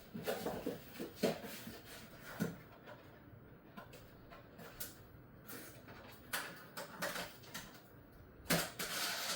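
Irregular light knocks and scuffs of things being handled, with a few longer rubbing or brushing strokes in the second half.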